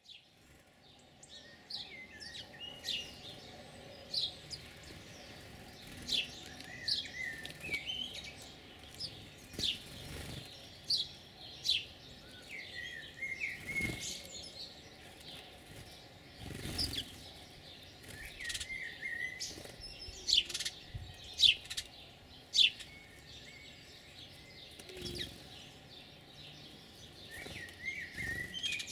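Songbirds singing and calling: many short, sharp chirps that drop steeply in pitch, repeated throughout, with lower warbling notes between them.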